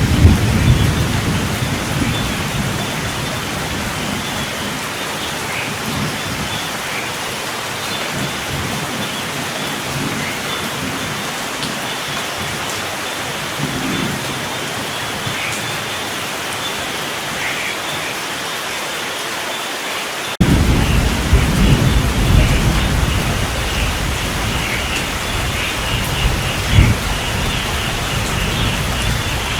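Steady rain falling, with low rolling thunder that fades over the first few seconds. About two-thirds of the way through, the low thunder rumble comes back abruptly and rumbles on under the rain.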